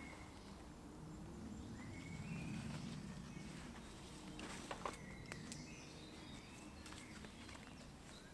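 Quiet woodland ambience: faint footsteps and rustling on a leaf-littered floor as a man moves about wearing a large rucksack, with a couple of sharp clicks near the middle and a few faint bird calls.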